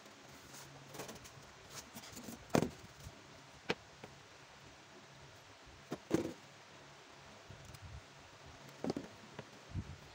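Hands handling rubber sandal sole pieces and a small plastic bottle on a workbench: a few scattered taps and knocks with quiet handling in between.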